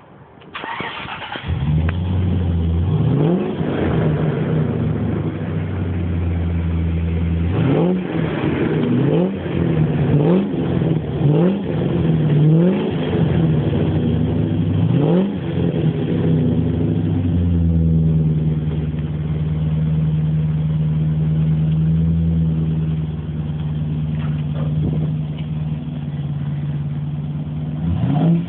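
Range Rover Classic's Rover V8 running through a custom stainless steel exhaust, heard at the tailpipe. It starts up about a second in and is blipped with a series of quick throttle revs. It then settles into a steady idle.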